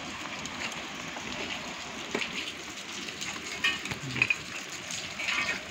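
Steady hiss of rain on a wet steel deck, with a few sharp metallic clinks and knocks as steel tools and a test jig are handled over anchor bolts.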